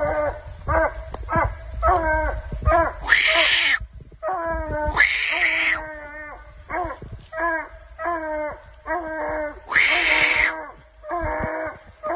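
Hound puppies barking up a tree: a steady run of short chop barks, about two to three a second, with longer, harsher, higher yelps breaking in about three, five and ten seconds in.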